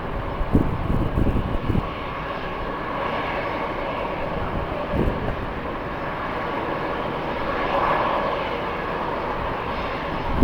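Jet airliner engines running, a steady roar with a faint even whine through it, while wind gusts buffet the microphone in the first two seconds and again about five seconds in.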